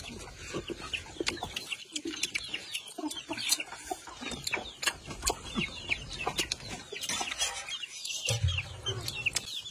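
Chickens clucking, with short sharp sips and slurps of soup from spoons.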